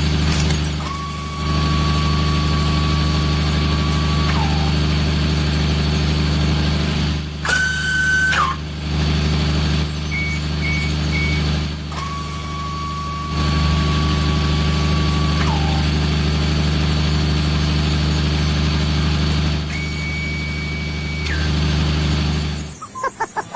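A truck engine runs steadily under a series of horn-like tones. Two long tones, each a few seconds long, dip in pitch as they end; a higher tone sounds about eight seconds in, three short beeps about ten seconds in, and another high tone near the end.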